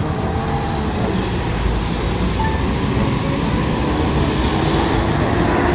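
Road traffic with a vehicle engine running: a steady low rumble and hiss, with an engine note rising slowly over the last few seconds.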